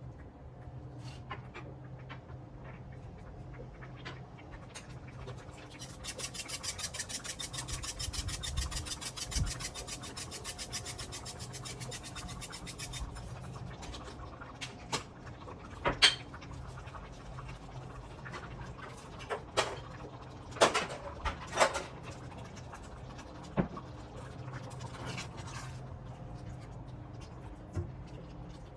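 Kitchen prep sounds: a quick, even run of strokes, about four a second, for some seven seconds, then a few separate sharp knocks of utensils, over a steady low hum.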